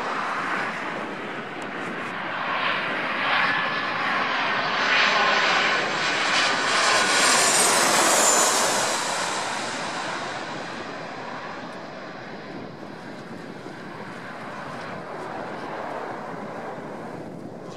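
Boeing 737 jet airliner on low final approach passing directly overhead. The engine noise builds to its loudest as it goes over, with a high whine that falls in pitch, then fades as it flies on toward the runway.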